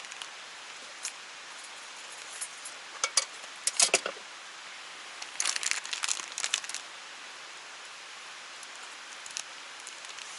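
Light clinks and rattles of camp gear being handled, in a short cluster about three to four seconds in and another from about five and a half to seven seconds, over the steady rush of a clear mountain stream.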